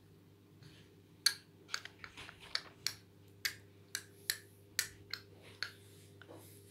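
Small hard toy pieces being handled and set down: a run of about a dozen light, sharp clicks and taps, irregularly spaced, starting about a second in, over a faint steady hum.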